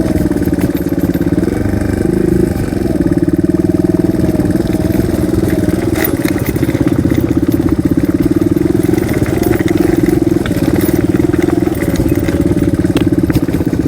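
Single-cylinder dual-sport motorcycle engine running at a steady, moderate throttle while riding a trail, with a rapid even firing pulse and only small rises and dips in speed.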